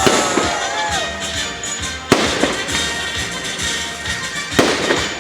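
Fireworks display: shells bursting with sharp bangs, one at the start, a loud one about two seconds in and another near the end, with whistles gliding up and down in pitch between them.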